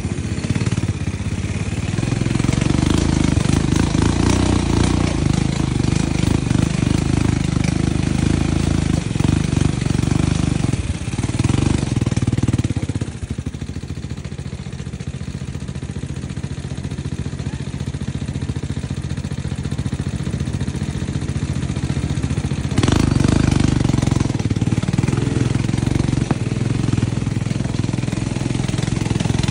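ATV engines running on the move, a steady low rumble. It eases off for about ten seconds in the middle, then picks up sharply again.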